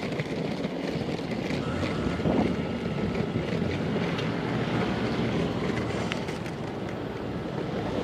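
Steady city street traffic noise from passing cars and scooters, with wind buffeting the microphone.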